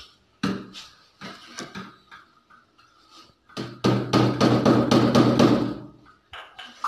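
Hammer knocking on a wooden door during its repair: a few separate knocks, then a louder, denser stretch of work lasting about two seconds near the middle.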